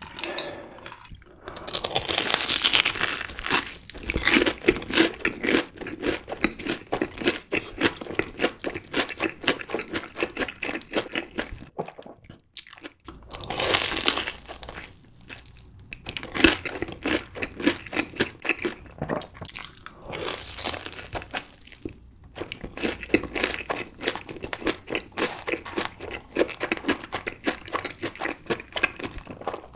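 Fried corn dogs coated in cheddar cheese sauce being bitten and chewed close to the microphone: crisp crunching of the fried crust mixed with wet chewing. There are several louder crunchy bites and a short pause partway through.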